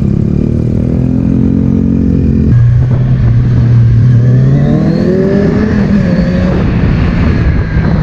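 Kawasaki Z1000's inline-four engine running under way, still on its stock exhaust. The engine note changes abruptly about two and a half seconds in, then the revs climb as the bike pulls.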